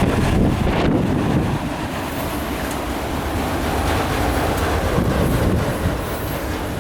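CSX train rolling past on the rails, a steady loud rumble of wheels and cars.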